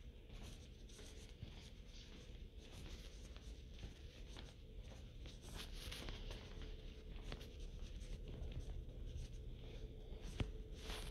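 Soft footsteps scuffing on a hard tiled floor at an even walking pace, over a faint steady hum, with one sharp click near the end.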